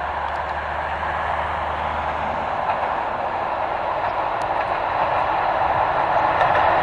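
ČD class 754 'Brejlovec' diesel-electric locomotive hauling passenger coaches as it approaches, its engine a low hum under the noise of wheels on the rails, growing steadily louder.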